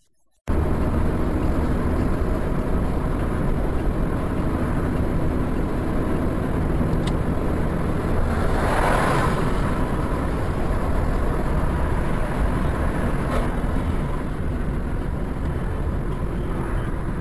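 Steady road and engine noise of a moving car as picked up by a dashcam inside the cabin, with a brief swell about halfway through and two faint ticks.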